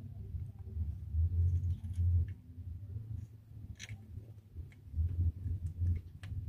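A bolt being fitted by hand to a timing chain tensioner: a few scattered sharp clicks of parts and tool over low rumbling handling noise that swells twice.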